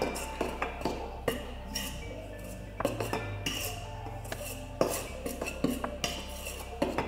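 A utensil scraping and clinking against a stainless steel mixing bowl in irregular strokes while a dry flour mixture is stirred.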